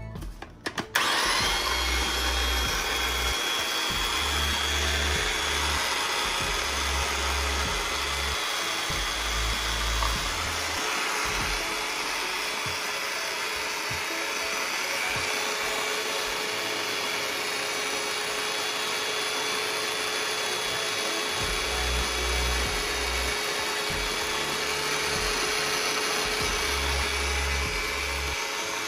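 Small electric food processor running continuously with a steady motor whine, its blade grinding onion, tomato, ginger, garlic and green chillies into a paste. It starts about a second in.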